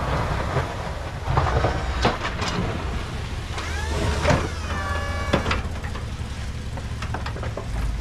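Ford F-250 plow truck's 6.2 L gas V8 idling with a steady low hum, with crunches and scrapes from footsteps and a shovel in heavy wet snow. A short whine rises and then holds about four seconds in.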